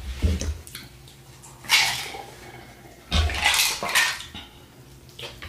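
Close-miked eating sounds: wet mouth noises of chewing food, with a metal fork scraping and clinking against a plate about three to four seconds in. There are short bursts a few times, some with a dull low thump.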